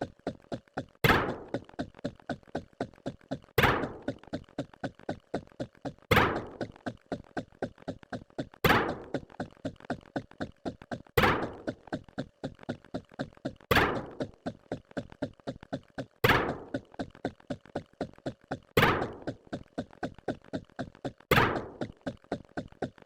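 A rapid, even train of short thunks, about four a second, with a louder, longer hit every two and a half seconds, the sound effects repeating as the numbers are counted off.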